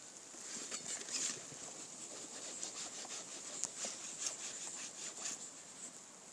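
Faint, irregular scrapes and ticks, a few a second at most, of a hand-held fire-starting tool worked against a small metal dish of tinder to throw sparks into it.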